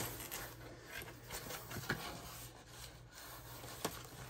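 Cardboard subscription box being opened by hand: the lid and flaps scrape and rub against each other, with a couple of sharp clicks about two seconds apart.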